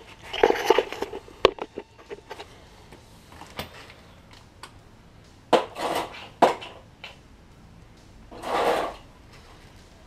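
Metal tools and fasteners clinking and clattering in short clusters of knocks, with a brief scraping or rushing noise near the end.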